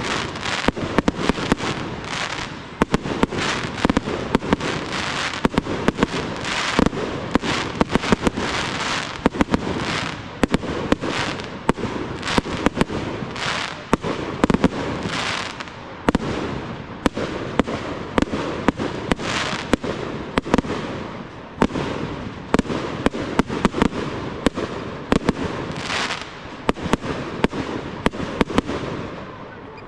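Aerial fireworks display: shells bursting in rapid succession, several sharp bangs a second, over constant crackling and hiss from the bursting stars.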